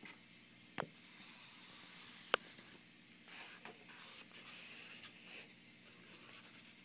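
Pen scratching on paper as it traces along the edge of a cut cereal-box cardboard template. There are a couple of short sharp clicks, the loudest a little over two seconds in.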